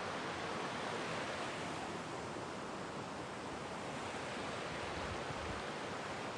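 Steady rush of water from a waterfall, an even unbroken roar.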